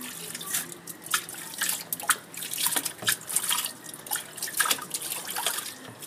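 Water splashing and dripping in a basin: irregular sharp splashes and drips, a few a second.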